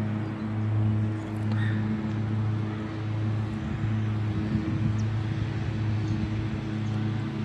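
A running engine's steady low hum with a few overtones, swelling and easing slightly in strength.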